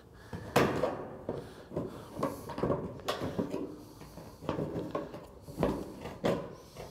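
Aviation snips cutting sheet-metal gable trim, a run of sharp snips about every half second as the tab section at the trim's end is cut away.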